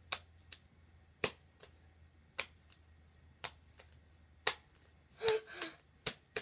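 Slime being squeezed and folded between the hands, making sharp clicking pops: a loud one about every second, with fainter ones between.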